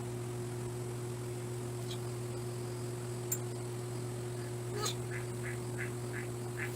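A run of five short high squeaking calls, about two and a half a second, in the second half, over a steady low hum, with a couple of sharp clicks before them.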